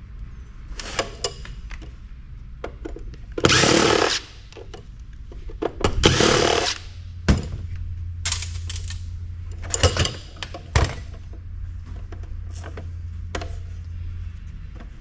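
Cordless power drill/driver run in two short bursts while a microfiche reader is disassembled, with scattered clicks and knocks of metal and plastic parts being handled.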